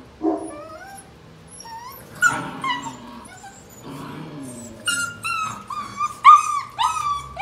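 Six-and-a-half-week-old Boerboel puppies whimpering and yipping: a few short whines in the first seconds, then from about five seconds in a quick run of high, rapid yelping cries, loudest about a second before the end.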